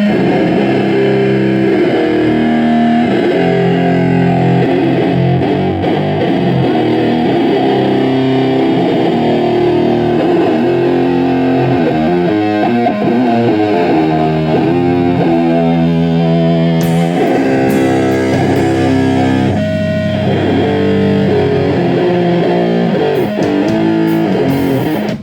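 Heavily distorted electric guitar played loud through an amplifier: a riff of held, low chords and changing notes, with no drums, that cuts off suddenly at the end.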